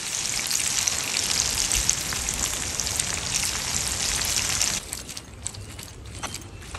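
Food frying in hot oil in a pan: a dense, steady sizzle that falls away about five seconds in, leaving lighter scattered crackles.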